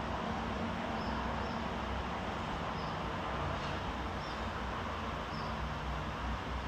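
Ceiling fan running at speed: a steady rush of moving air over a low hum, with a few faint high bird-like chirps at irregular intervals.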